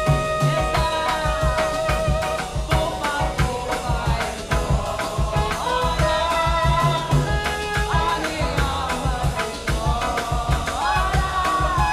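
Jazz music: a gliding melody line over bass and drums, playing steadily.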